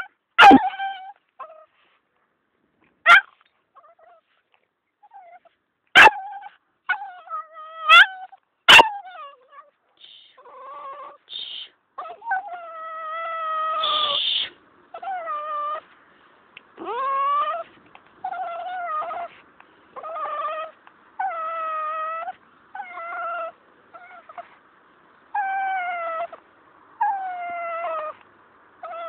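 Cavalier King Charles spaniel whining repeatedly in high-pitched, drawn-out whines, about a dozen in the second half, some falling away at the end. The first part holds a few short, sharp yips with gaps between them.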